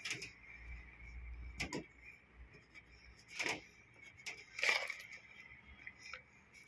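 Hands handling and fitting the casing panel of a Hitachi twin-tub washing machine: a few scattered knocks and short scrapes, about four in all, with quiet between.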